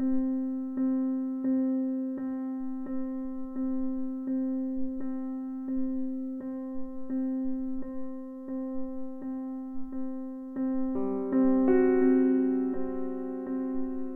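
Ambient instrumental music: a keyboard, electric-piano-like, repeating one note about every 0.7 seconds. More notes join in a fuller, louder chord about eleven seconds in.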